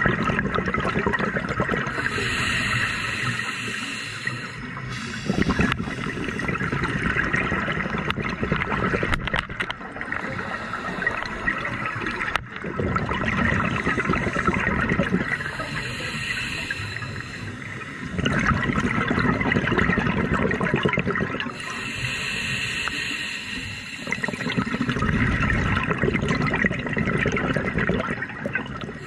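Scuba diver breathing through a regulator underwater: a hiss on each inhale, then a burst of bubbling exhaust, in a few slow breaths.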